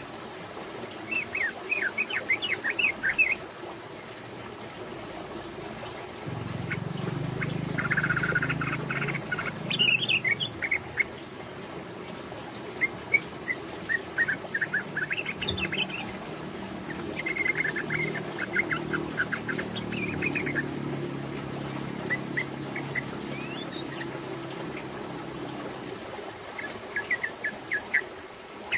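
Female yellow-vented bulbul calling in repeated short bursts of quick, chattering notes (the rapid 'ropel' call), about half a dozen bursts a few seconds apart. A steady low hum runs underneath through the middle.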